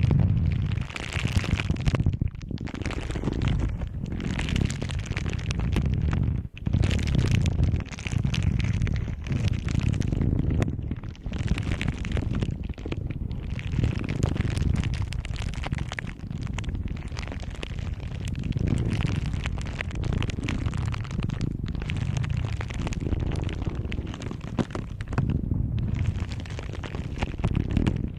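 Objects handled close to a microphone: continuous crackling and rustling, with dense clicks and low rumbling swells that come and go in waves.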